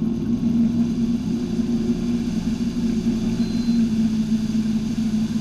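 Inboard engine of a wakesurf tow boat running steadily under way, a low drone, with water churning in the boat's wake.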